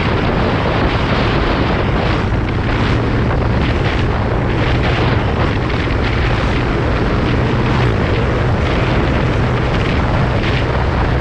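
Steady wind rush on the microphone over the drone of a Honda Vario 125 scooter cruising at speed on the open highway.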